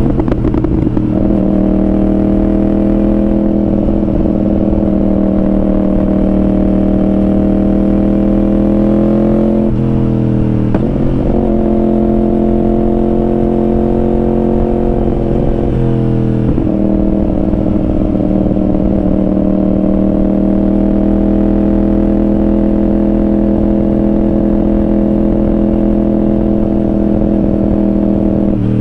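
Yamaha R1's inline-four engine with a Yoshimura exhaust running at a steady cruise, heard from a camera on the bike. The engine note dips briefly and comes back near the start, about ten seconds in and about sixteen seconds in, over a rough rush of wind and road noise.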